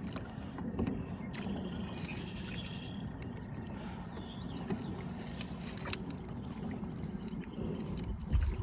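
Steady low rumble of wind and small water movement around a kayak on a lake, with a few light clicks and one low thump near the end.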